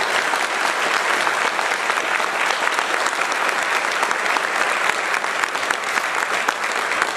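Audience applauding steadily: dense clapping from a roomful of people.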